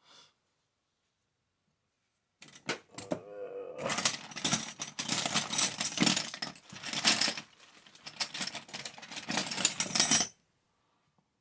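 Metal hand tools clattering and jangling against each other as they are rummaged through, starting about two seconds in and stopping shortly before the end.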